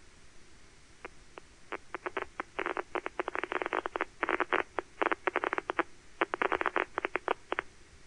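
Audio of a single rat hippocampal place cell's electrical spikes, each spike a sharp pop. The pops start about a second in, a few at first, then come in dense rapid clusters with a short lull between and thin out near the end. The clusters mark the rat being in the cell's place field; the sparse stretches mark it elsewhere in the arena.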